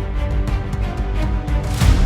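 Background music with a steady beat and a cymbal-like swell near the end.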